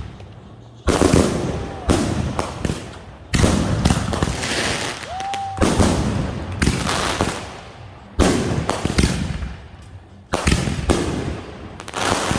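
Consumer fireworks going off: six loud bangs about two and a half seconds apart, each trailing off in a long rumble, with crackling between them.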